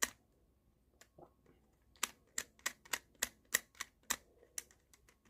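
Sharp clicks of a screwdriver tip scratching lint off the plastic roller inside a ball mouse. There is one click at the start, then from about two seconds in a run of clicks at roughly three a second.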